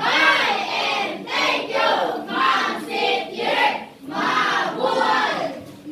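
A class of students chanting a goodbye to their teacher in unison, in drawn-out, sing-song syllables.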